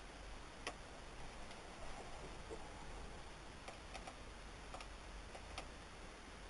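Scattered light clicks, about seven in all, a few of them in quick succession around the middle, over a steady hiss.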